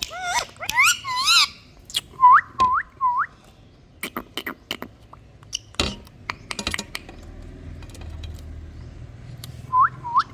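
Pet Indian ringneck parrot calling: a wavering, warbling squawk, then three quick upward-sweeping whistles, with scattered clicks, and three more rising whistles near the end.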